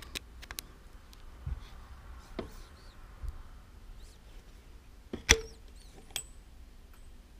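Scattered metal clicks and clinks of hand tools and parts on a stripped moped engine, the loudest a sharp ringing clink about five seconds in.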